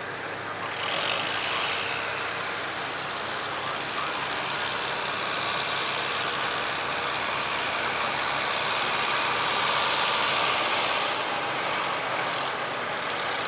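Claas Jaguar 960 self-propelled forage harvester at work chopping triticale and blowing it into a trailer, with the tractor alongside. It makes a steady machine drone with a strong hissing top that eases a little near the end.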